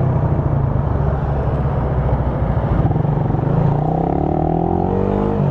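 Motorcycle engine running under way, heard through a microphone inside the rider's helmet over wind and road noise. About three and a half seconds in, its pitch climbs as the bike accelerates.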